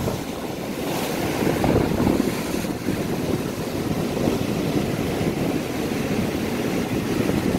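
Sea surf breaking and washing over rocks: a steady rushing noise, with wind buffeting the microphone.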